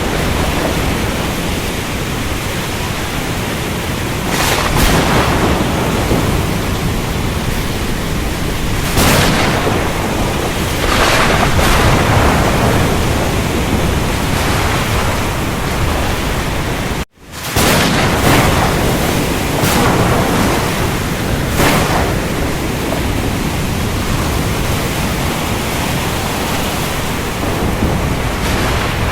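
Storm over the ocean: a steady wash of heavy rain and surf with thunder, swelling in several loud surges. The sound cuts out completely for a split second a little past halfway.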